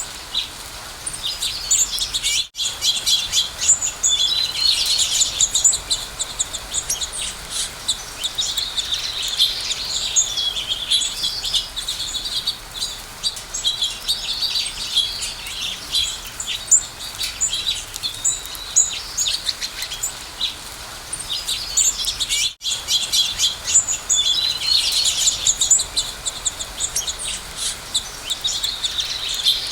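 Dense chorus of many small birds chirping and twittering over one another without pause. The sound cuts out for an instant twice, once a few seconds in and again near the end.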